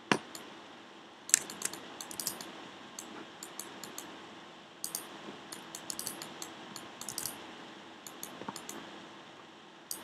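Sharp, irregular clicks of a computer mouse and keyboard being worked, coming in scattered clusters over a faint steady hum.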